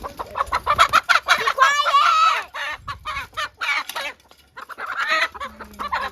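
Chickens squawking and clucking in a string of short, sharp calls, loudest in the first two and a half seconds, with one long wavering squawk about two seconds in.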